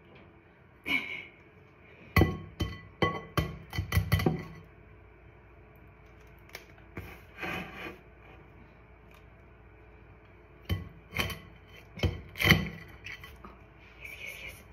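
Egg knocked against the rim of a clear glass mixing bowl, making sharp clinks. There is one clink about a second in, a quick run of about seven a couple of seconds in, and another run of about five near the end.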